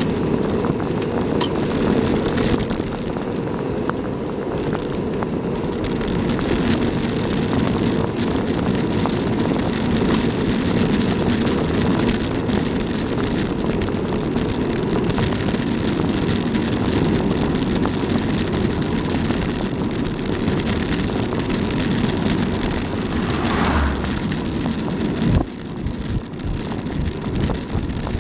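Wind buffeting the microphone on a bicycle coasting fast downhill on tarmac, a steady low rushing with tyre rumble underneath. A single knock about 25 seconds in, after which the rushing drops and turns uneven.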